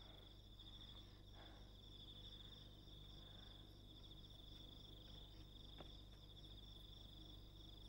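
Faint, steady chirring of crickets, a high pulsing trill, with a single soft click near the end.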